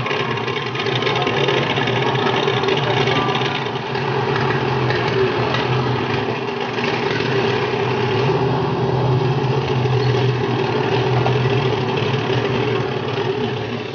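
Boat engine running steadily, its low note growing stronger about eight seconds in.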